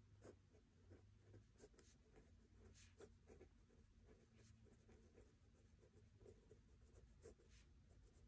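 A pen writing by hand on notebook paper: faint, irregular scratching strokes.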